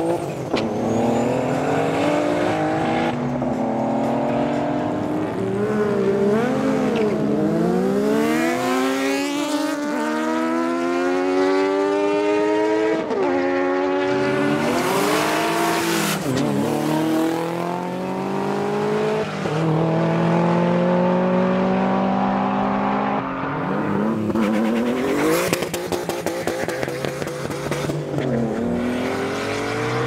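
BMW drag cars' engines at full throttle, their pitch climbing through each gear and dropping sharply at every shift, one hard acceleration after another, with a few brief sharp noises in between.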